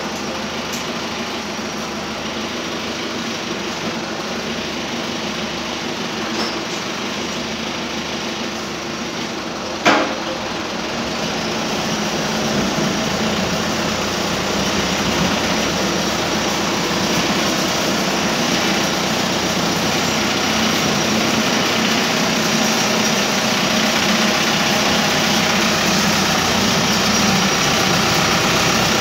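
Farm tractor engine running steadily while the tractor pushes manure along a barn floor, growing louder as it comes closer from about eleven seconds in. A single sharp knock sounds about ten seconds in.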